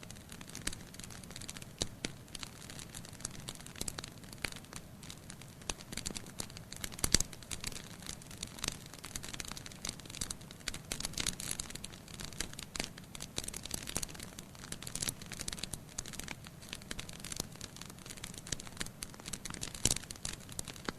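Wood fire in a fireplace crackling, with a steady run of irregular snaps and pops from the burning logs; two louder pops, about seven seconds in and near the end.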